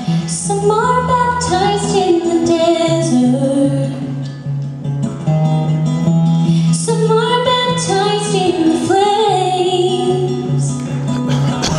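A woman singing a melody into a microphone, accompanied by acoustic guitar, in a live amplified performance.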